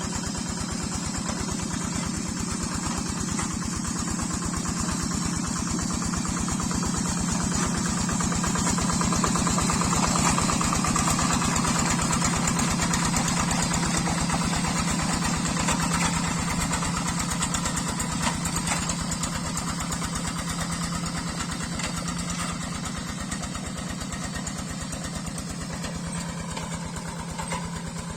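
Single-cylinder Yanmar diesel engine of a Quick G3000 Zeva hand tractor running steadily under load while working deep paddy mud, with a fast even chugging pulse. It grows louder toward the middle and eases off near the end.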